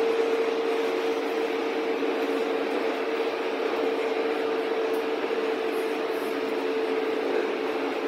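Interior running noise of a Berlin U-Bahn class H train between stations: an even rumble of wheels on rail with a steady humming tone that holds the same pitch throughout, as at constant speed.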